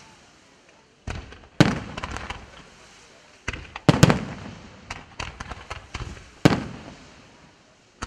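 Aerial firework shells bursting in three volleys of sharp, echoing bangs: one about a second in, one around four seconds, and a run ending in a loud bang near six and a half seconds, with short lulls between.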